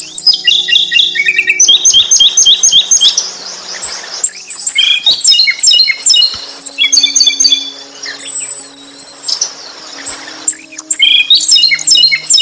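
A songbird singing: loud, rapid runs of high chirps and trills with quick repeated notes, and one long thin whistled note about eight seconds in.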